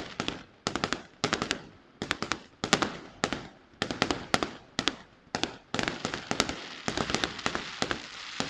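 Fireworks display: rapid volleys of sharp bangs, each a tight group of several reports, coming about every half second and running together more densely in the last few seconds.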